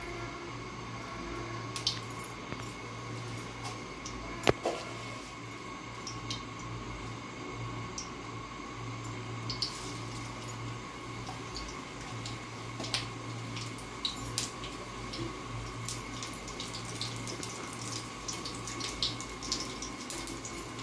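Panch phoron seeds and dried red chillies crackling and popping in hot oil in an iron kadai, over a steady hiss. The pops grow more frequent after about ten seconds, once the spices are sprinkled in, and one sharp knock comes at about four seconds.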